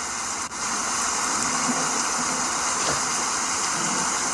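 Rain-sound ASMR recording of a heavy, unceasing downpour playing back: a steady, even hiss of pouring rain, with a brief drop-out about half a second in.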